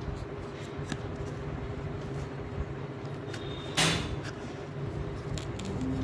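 Handling noise from crocheting around a hollow plastic toy bird: a crochet hook and yarn working stitches, with a few faint clicks and one short, louder rustle about four seconds in, over a steady low background hum.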